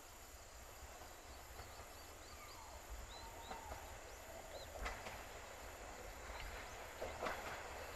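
A train approaching in the distance: a faint, steady low rumble with a few soft clicks, under a few high chirps and a steady high hiss.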